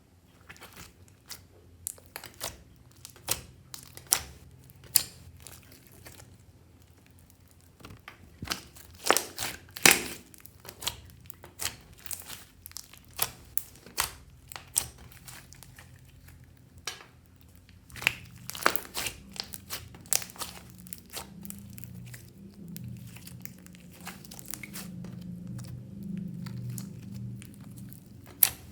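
Clear slime mixed with clay being kneaded and stretched by hand, giving irregular sharp pops, clicks and crackles. A low rumble runs under them in the second half.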